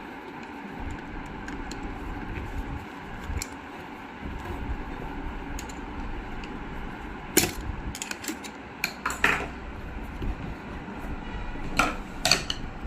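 Metal clinks and knocks of tools and parts being handled while a zig-zag sewing machine is worked on, over a steady background hum. The sharpest knocks come about halfway through and near the end.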